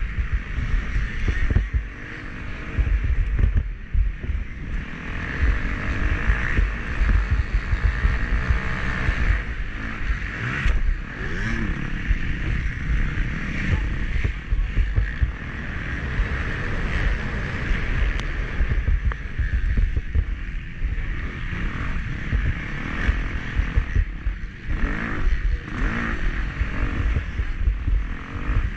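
Motocross dirt bike engine running hard through a race lap, its revs rising and falling, with heavy low rumble and wind buffeting on an onboard action-camera microphone.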